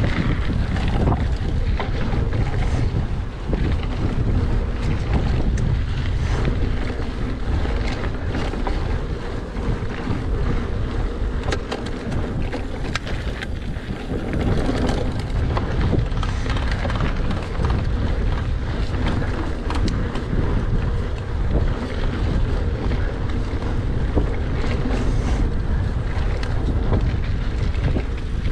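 Mountain bike ridden along a dirt trail: steady rumble of wind buffeting the action camera's microphone and of tyres rolling over sandy, rooty ground, with scattered clicks and rattles from the bike over bumps.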